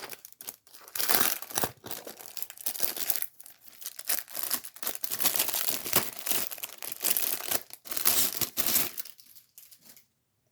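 Packaging being handled and torn open: crinkling and tearing in irregular bursts, dying away about a second before the end.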